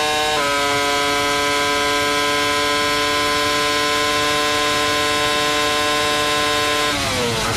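Mercedes 3.0-litre V10 of a 2004 McLaren Formula One car at full throttle, heard onboard with a high, steady note. The pitch steps down slightly about half a second in, then holds flat. Near the end it falls steeply as the car brakes and downshifts for the corner at the end of the straight.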